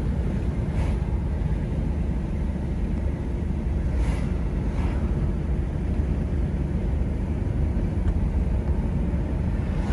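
Steady low rumble of road and engine noise heard from inside a moving car's cabin, with a few brief knocks.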